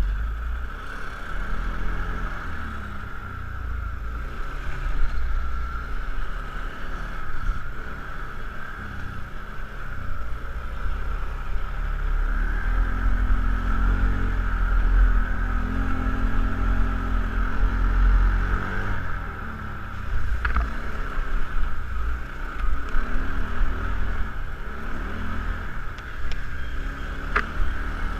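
ATV engine running under way, its pitch rising and falling with the throttle, with two brief sharp knocks in the second half.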